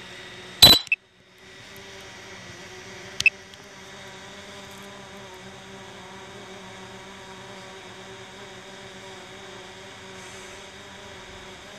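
DJI Mavic Pro Platinum drone's propellers humming steadily in a hover overhead. A sharp click comes about half a second in, with the sound cutting out briefly after it, and a second sharp click about three seconds in.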